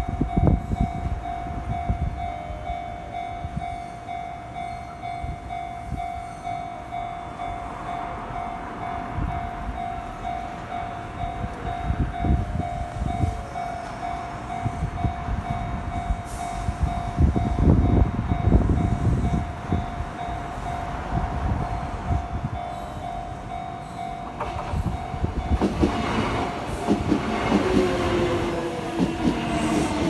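Japanese level-crossing warning bell ringing with a steady, repeating electronic ding while the barriers are down. In the last few seconds a Kintetsu 6400-series electric train set draws up and runs across the crossing, its wheels squealing.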